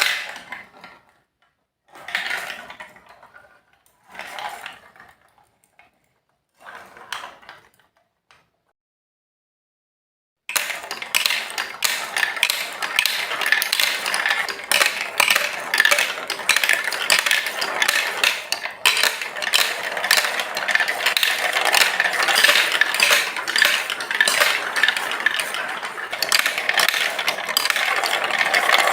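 Marbles clattering on a Lego Duplo plastic block track: a few short clatters about two seconds apart, then after a brief pause a dense, continuous rattle of many quick clicks as marbles roll and knock along the plastic run.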